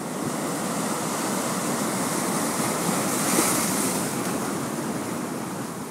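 Rough sea surf breaking and washing over shoreline rocks, a steady rush of foaming water that swells to a crash a little past the middle and eases off toward the end.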